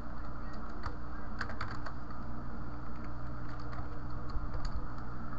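Computer keyboard keystrokes: a few scattered, irregular taps as a line of code is typed, over a steady low hum in the background.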